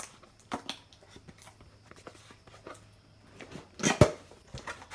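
Intake parts being handled: scattered light clicks and rustles, with one louder knock about four seconds in.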